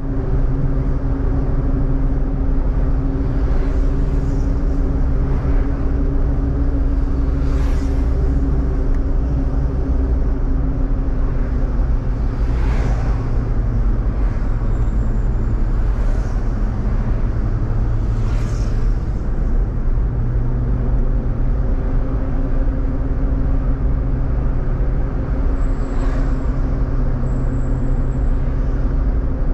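Car driving in traffic: a steady engine hum and road noise, with a few brief swells of noise from passing traffic.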